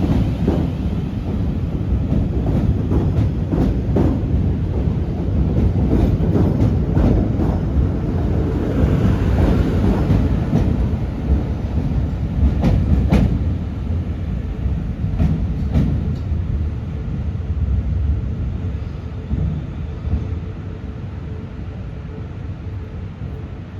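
Passenger train running along the track with a steady rumble and wheels clicking over rail joints; the sound dies away over the last several seconds.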